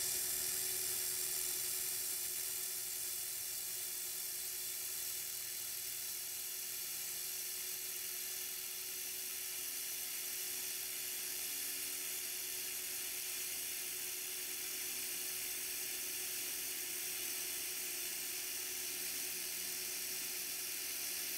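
LightWELD XC handheld laser welder, set to 1500 watts with wire feed and argon shielding, running a fillet bead on quarter-inch steel plate: a steady high hiss and sizzle, with a faint steady hum underneath.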